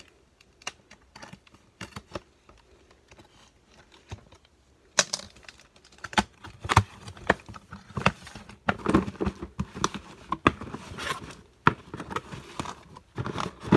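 Cardboard shipping case being opened by hand: faint scrapes and clicks as a box cutter works the packing tape, then, from about five seconds in, louder cardboard flaps being pulled open and plastic blister-carded toy cars rustling and clicking against each other as they are handled.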